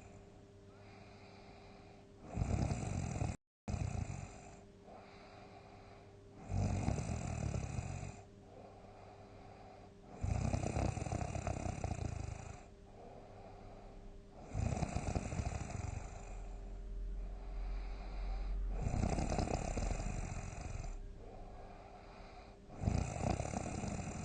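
A sleeping person snoring heavily: six long, rough snores, about one every four seconds, over a faint steady hum. The sound cuts out for a split second a little after the first snore.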